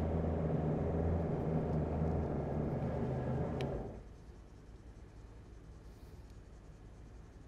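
Electric vehicle winch running under load, hauling the 4WD up a slope on a double-line pull through a pulley block, with a steady low hum. A short click comes just before it stops abruptly about four seconds in, leaving only a faint steady background.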